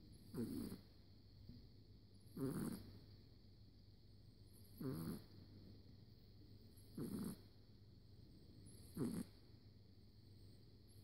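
Snoring: five short, rattling snores in an even rhythm, about one every two seconds.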